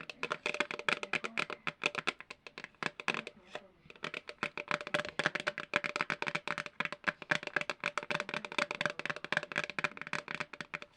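Dense, rapid crackling and tapping from hands working crinkly material, many irregular clicks a second, easing briefly near the middle. A faint steady hum runs underneath.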